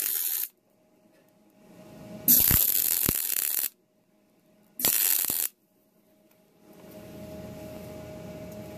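Wire-feed MIG welder crackling as it lays plug welds through holes in sheet steel, in three short bursts: one ending about half a second in, a longer one from about two to nearly four seconds in, and a brief one around five seconds. A steady low hum comes up in the last couple of seconds.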